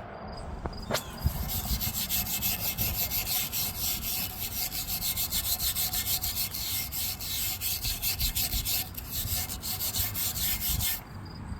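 Steel wire brush scrubbed by hand back and forth over a brake rotor, rasping in quick, even strokes as it clears rust out of a crevice. The scrubbing stops near the end.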